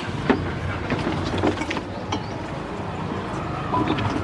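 A metal spoon clinks irregularly against a steel pot as the juice is stirred, over a steady low mechanical rumble.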